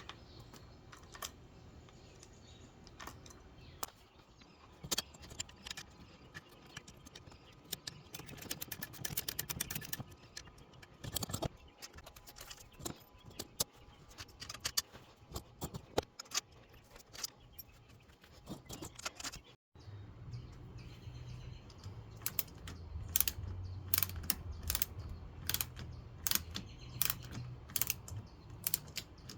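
Small hand ratchet clicking as furniture bolts are tightened, among scattered clicks and clinks of metal hardware, with a fast run of ratchet clicks about eight to ten seconds in. After a brief break about two-thirds through, a low hum sits under the clicking.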